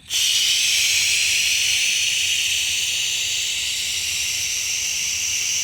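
A long, slow exhale hissing out through the mouth in a counted breathing exercise. It starts abruptly and holds steady for several seconds.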